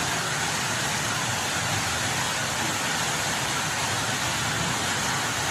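Steady hiss of heavy rain and rushing flood water, even and unbroken throughout.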